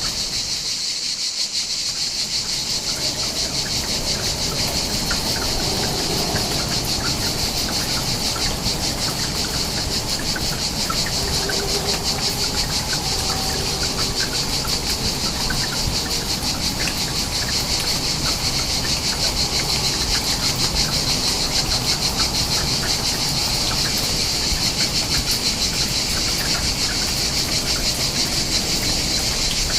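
Dense chorus of insects such as crickets, a steady high-pitched pulsing trill, over a continuous low rushing background.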